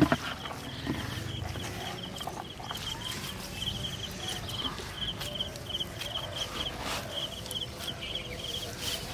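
Outdoor rural ambience: a high chirping repeats in quick pulses over and over, with a sharp knock at the very start and a few faint low clucks early on.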